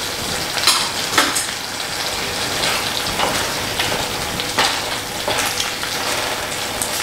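Chickpea curry in tomato sauce sizzling in a stainless steel pot, with a wooden spatula stirring and scraping through it in short strokes. Two sharp clicks about a second in.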